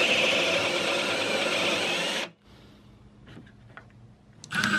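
Cordless drill boring a concealed-hinge cup hole into a wooden cabinet door through a Kreg hinge jig, running steadily for about two seconds and then stopping abruptly. Near the end the drill runs again briefly with a steadier whine.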